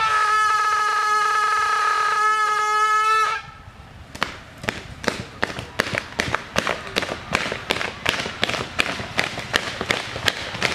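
A steady train-horn call held for about three and a half seconds, then rhythmic stamping of feet at about three beats a second, like a train chugging.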